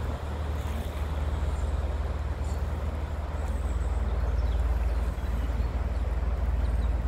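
Diesel engines of a passenger river cruise ship running with a steady deep throb as the ship passes close by, growing a little louder midway.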